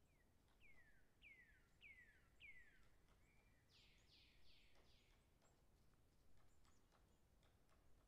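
Faint, distant woodpecker feeding, heard as scattered light pecking taps. A bird calls four descending whistled notes in the first three seconds, then four harsher notes about four seconds in.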